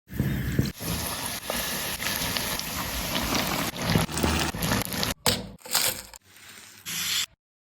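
Crisp fried momos crunching, with dense crackling and sharp snaps, in short edited pieces that drop out twice near the end.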